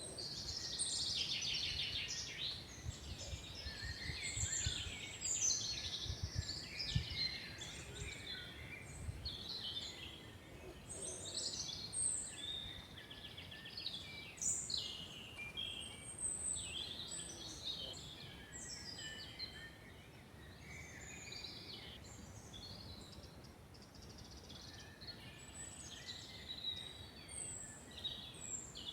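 Several forest birds singing together, overlapping chirps, trills and short whistles, busier in the first half and thinning out later, over a faint low rumble.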